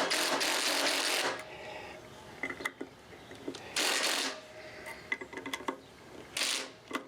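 Screws being driven with a number 3 Phillips bit through a lathe faceplate into a hard purpleheart blank: three bursts of grinding, rasping noise, the first and longest about a second long, with small clicks between them.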